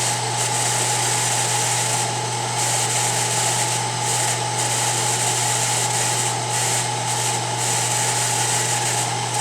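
Milling machine running steadily with an end mill taking a light facing pass across the top of a threaded sleeve in a carburetor body, a constant motor hum with a steady whine over it.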